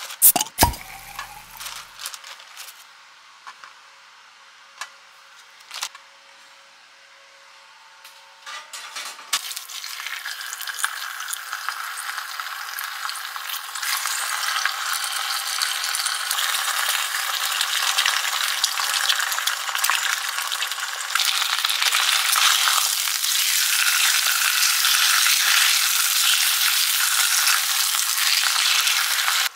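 A few sharp clicks and knocks of handling over a metal tray, then ham slices and eggs sizzling in a frying pan. The sizzle starts about nine seconds in and grows steadily louder.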